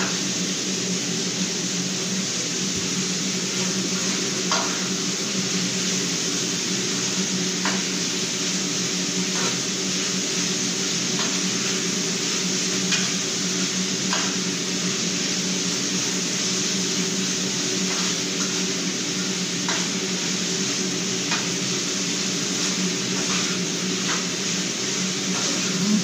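A metal utensil clinking against a pan every second or two as food is stirred on a gas stove, over a steady hum and hiss.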